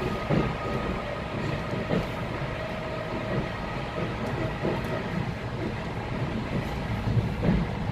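ЭТ2М electric multiple unit running along the line, a steady low rumble with a faint steady whine and occasional knocks from the wheels on the track.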